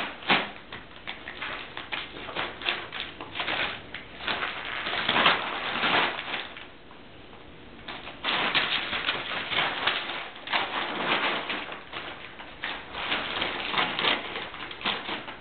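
Crumpled brown paper crinkling and rustling in irregular bursts as cats tussle in it, with a short lull a little past the middle.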